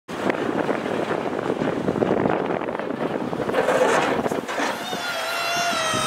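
Ford F-250 pickup with a Boss snowplow pushing snow: a steady rush of engine and blade-pushed snow, with a steady high whine coming in near the end.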